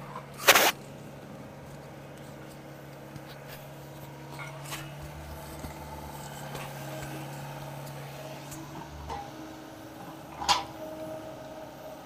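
SDLG mini excavator's diesel engine running steadily while it digs, with two loud sharp knocks, one about half a second in and one about ten seconds in.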